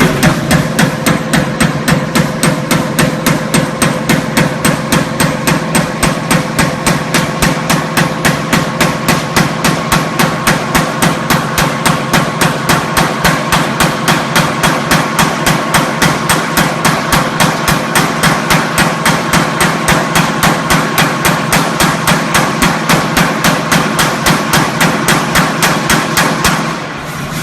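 A factory machine hammering in a steady rhythm, about three blows a second, over a steady mechanical hum.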